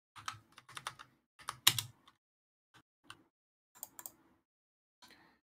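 Computer keyboard keys and mouse buttons clicking in irregular clusters of short clicks, busiest in the first two seconds and loudest just under two seconds in, then a few scattered single clicks.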